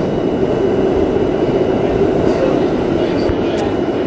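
R32 subway car running along the track, heard from inside the car: a steady, loud rumble of wheels and running gear, with a brief faint click near the end.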